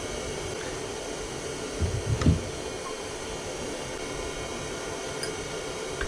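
Steady whirring noise of a fan or small motor running, with a couple of dull low thumps and a click about two seconds in.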